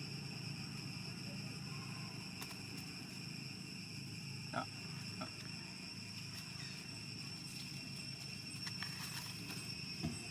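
Steady outdoor insect drone, a few continuous high-pitched tones, over a low even background hum, with a couple of brief faint sounds about halfway through.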